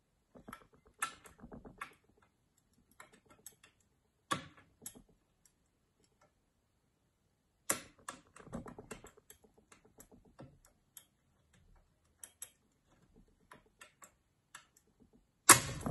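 Lever picks working inside a Mottura 52771 lever lock: irregular light metallic clicks and scrapes in clusters, with a few sharper clicks as levers are lifted and set under tension. A louder clatter comes right at the end.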